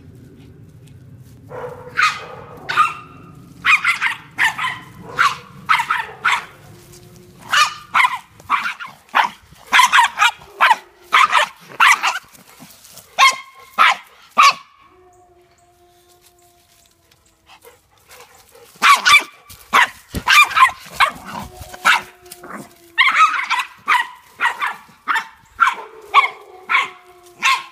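Dogs barking during rough play: rapid, high-pitched barks in two long runs, with a pause of a few seconds in the middle.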